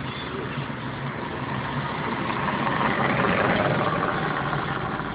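Car engine running and steady road noise heard from inside the moving car's cabin.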